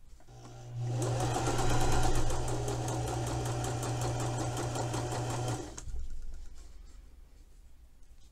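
Domestic sewing machine stitching a narrow hem in white dress fabric: the motor starts up, runs a fast, even string of stitches for about five seconds, then stops.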